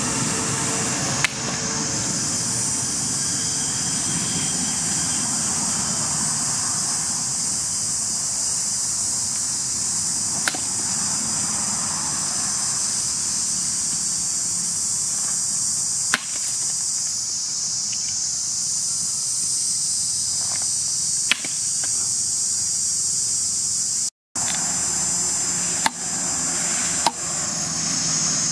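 Hand-forged double-bit axe chopping into wood: about six single sharp strikes, several seconds apart, over a steady high-pitched drone of insects.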